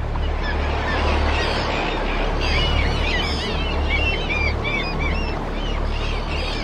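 A flock of gulls calling, many short overlapping cries that are thickest in the middle seconds, over a steady low rushing background.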